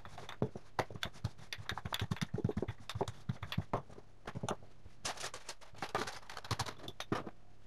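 Wooden rolling pin rolling out dough on a granite worktop: a quick, irregular run of clicks and knocks.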